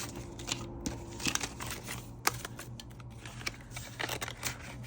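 Paper banknotes and cash envelopes being handled: light crinkling and rustling with scattered small clicks, one sharper tick about two seconds in.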